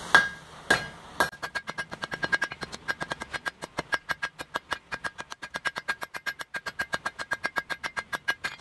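A hand hammer strikes red-hot steel on an anvil to forge the final shape of a fireplace poker. There are a few heavy blows, then a fast, even run of lighter strikes, about five a second, each with a bright ring from the anvil.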